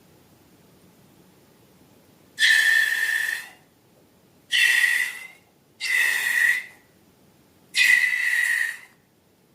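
Air let out of a balloon through its stretched neck: four squealing whistles with a rushing hiss, each lasting under a second, separated by short pauses.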